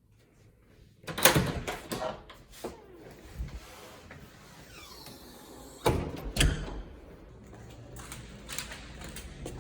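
Several sharp knocks and clacks of things being handled indoors, like a door or drawer being moved, over a low rustle.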